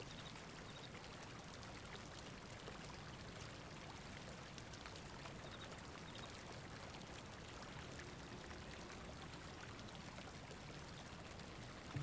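Faint, steady hiss of gently running water.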